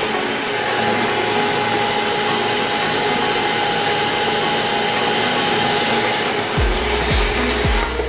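Small ES28 robot vacuum cleaner running: a steady motor whir with a steady whine. About six and a half seconds in, background music with a deep thumping beat comes in.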